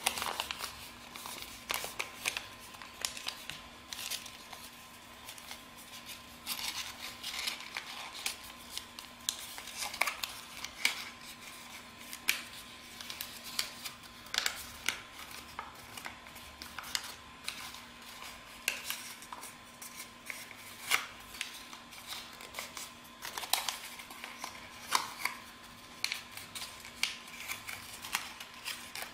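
A sheet of A4 paper rustling and crackling as hands fold and crease it, with many short, irregular snaps of the paper.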